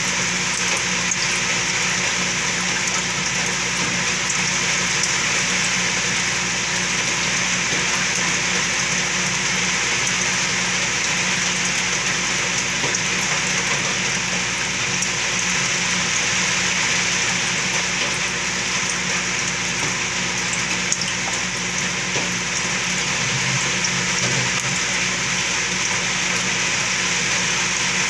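Saltwater aquarium water circulating: a steady rush of moving, bubbling water with a faint steady hum underneath.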